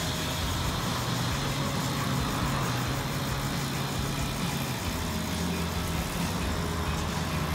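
Steady street traffic noise: a low engine hum with the general rumble of road traffic.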